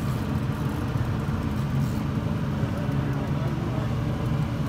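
Boat motor running steadily at trolling speed, a continuous low rumble with a faint hum.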